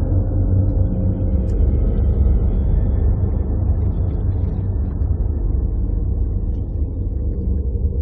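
Steady low rumble of a Cape buffalo herd running together over dry ground.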